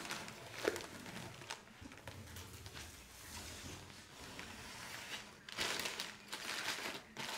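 A large sheet of paper transfer tape rustling as it is peeled off a vinyl-lettered sign and crumpled up by hand, loudest near the end as the sheet is balled up.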